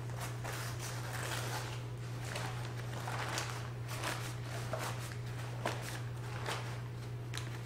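Grease-soaked butcher paper rustling and crinkling in irregular bursts as it is peeled back from a cooked brisket in a foil pan, over a steady low hum.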